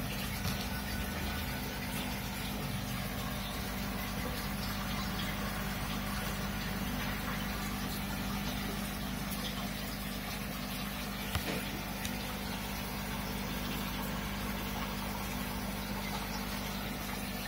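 Aquarium filtration running: a steady rush of circulating water over a low, even pump hum, with one sharp knock about eleven seconds in.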